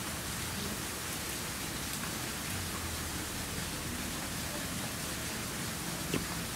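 A steady, even hiss, with a single short click about six seconds in.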